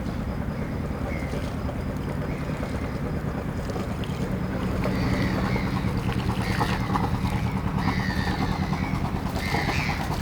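A boat's engine running steadily as a low hum, a little louder from about halfway, with wind on the microphone. Short high chirps come and go over the hum in the second half.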